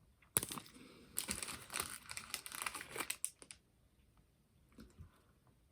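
Crinkly snack-bar wrapper of a Nature's Bakery raspberry fig bar being torn open and handled: a sharp crackle, then about two seconds of dense crinkling, then a few faint clicks.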